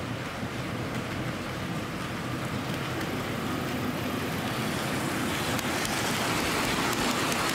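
Hornby Class 60 OO gauge model diesel locomotive running on the track. Its central can motor hums and its wheels ring on the rails, growing steadily louder as it draws near. Fast light clicking sets in as it passes about two-thirds of the way in. The model is brand new and is being run in at about 50% power so that its gears and drive line bed in.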